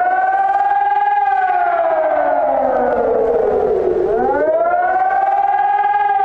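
German civil-defence siren sounding a slow, steady wail. Its pitch rises, falls gradually for about three seconds, then climbs again near the end.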